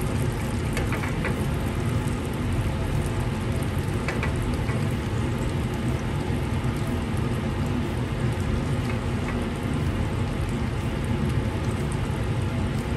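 Meatballs frying in a pan: a steady sizzle with a few faint pops.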